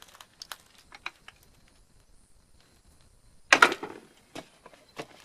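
Hand tools clicking and knocking against metal while a socket and breaker bar are worked onto a motorcycle's rear suspension nut and bolt: a few light clicks, a loud clatter about three and a half seconds in, then two more clicks.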